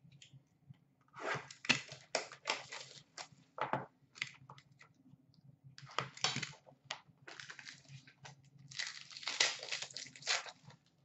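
Plastic and foil wrapping of a hockey card box being torn open and crumpled by hand, in several irregular bursts of crinkling and tearing with short quiet gaps between.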